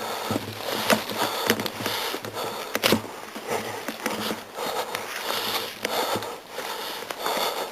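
A person breathing hard and sniffing close to the microphone, with a few sharp clicks, the loudest about three seconds in.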